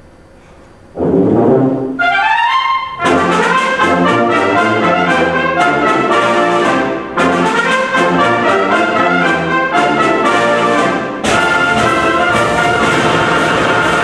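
Concert wind band playing loudly, brass and woodwinds together. After a quiet first second the band comes in with a burst and climbs in a quick rising run, then plays full rhythmic chords, with a short break about eleven seconds in.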